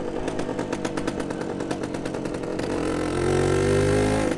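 1974 Suzuki RV125's single-cylinder two-stroke engine on the move. It drops off the throttle at the start into an uneven popping run. From about two and a half seconds in it picks up again with a rising note, then falls off again at the end.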